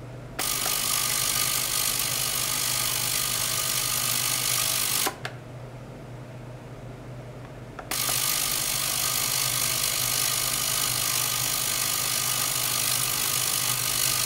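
Ultrasonic cleaning bath running, a loud steady hissing buzz of cavitation in the tank. It switches on with a click about half a second in, cuts off around five seconds, and comes back on near eight seconds. A low steady hum runs underneath.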